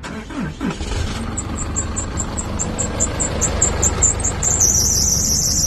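Isuzu diesel truck engine running at idle. Over it runs a rapid high-pitched chirping, about four a second, that gives way to a steady high hiss about four and a half seconds in.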